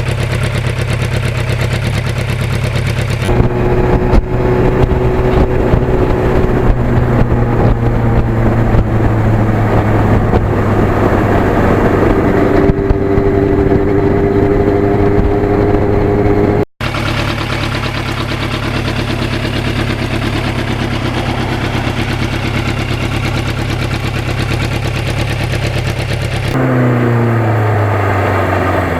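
Yamaha FZR1000's inline-four engine running steadily under way, with wind and road noise. The sound breaks off abruptly for an instant about two-thirds through, and near the end the engine pitch falls and wavers as the bike slows.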